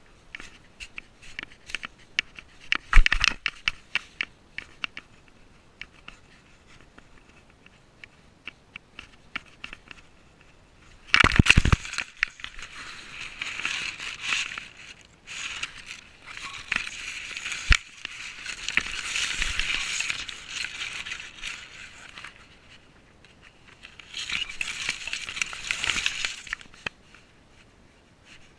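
Grass and dry stalks rustling and crackling against a cat-worn GoPro as the cat pushes through tall vegetation, with scattered clicks and knocks on the camera, the loudest about three and eleven seconds in.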